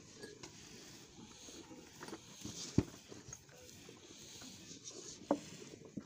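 Black Holstein bull eating wanda feed off the ground, with a steady scatter of small crunching and munching sounds. A sharp knock about three seconds in, and another shortly before the end.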